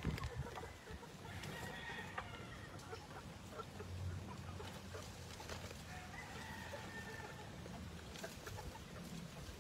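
Gamefowl hens clucking quietly, with a faint rooster crow about six seconds in.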